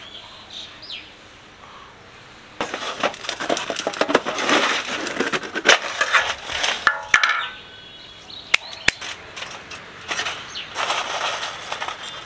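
A metal tin's lid worked off, then lumps of homemade wood charcoal clinking and crunching against one another and the tin as they are handled, starting about two and a half seconds in with sharp clicks scattered through.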